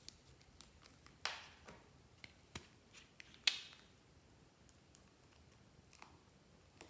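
Slime being worked by hand, giving faint scattered sticky clicks and small pops, the loudest about three and a half seconds in, then a pause of about two seconds before a few more.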